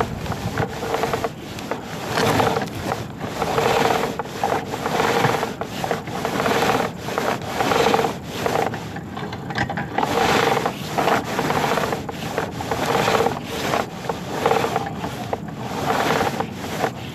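Rhythmic rubbing and scraping, swelling about once a second, as a sewer inspection camera's push cable is pulled back out of the pipe, with a short lull about nine seconds in.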